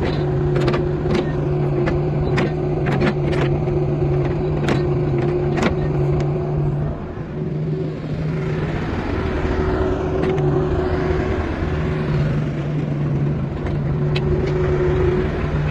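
Kubota KX155-5 mini excavator's diesel engine running steadily under load while the machine works its boom and bucket, with sharp metallic clanks through the first six seconds and a rising hiss about eight seconds in.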